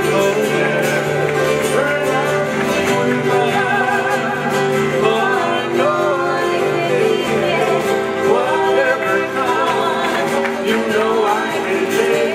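Live Hawaiian song for hula: ukuleles and an acoustic guitar strummed in a steady rhythm, with a voice singing the melody with vibrato over them.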